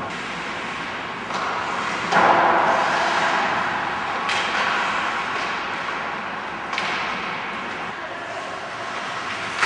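Ice hockey play on the rink: several sharp knocks and bangs of puck, sticks and boards over a steady hiss of rink noise. The loudest comes about two seconds in.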